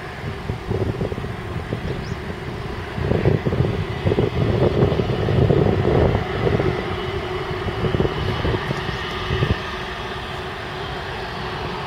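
Airbus A330-243's Rolls-Royce Trent 700 jet engines whining steadily at low power as the airliner rolls off the runway after landing. From about three seconds in to about nine and a half, irregular rumbling gusts of wind on the microphone are the loudest sound.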